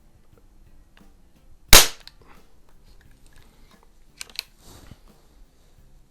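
A single sharp shot from a Crosman 147 multi-pump pneumatic air rifle firing a pellet, about two seconds in and much the loudest sound. About two seconds later come two sharp clicks and a short rustle of handling.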